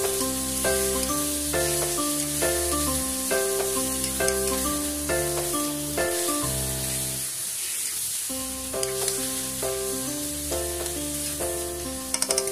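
Chicken pieces sizzling in a hot wok as they are stirred and turned with a spatula, with a few quick taps of the spatula near the end. A stepping keyboard-like melody of background music plays over it.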